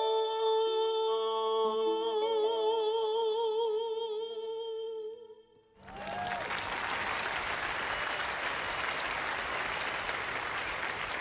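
A male singer holds a final high note over soft accompaniment chords. A vibrato comes into the note after about two seconds, and it dies away a little over five seconds in. After a brief hush, steady applause starts and continues.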